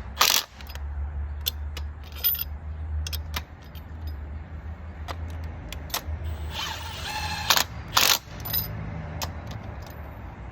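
Short bursts of a power impact wrench running spark plugs in, between metallic clinks and taps of sockets and tools, over a steady low hum.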